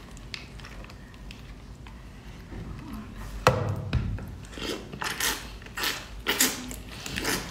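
Sucking and slurping at the shell of a large mantis shrimp held to the lips, drawing the meat out: a sharp click about three and a half seconds in, then a run of short wet slurps about every half second.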